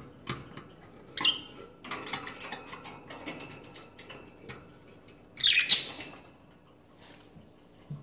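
Small cage bird calling in two short bursts, about a second in and again near six seconds, between irregular clicks and rattles of it moving about the wire cage and its plastic fittings.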